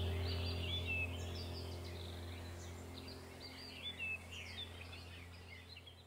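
Birdsong, many short chirps and whistles, over a low steady drone, gradually fading out to near silence at the end.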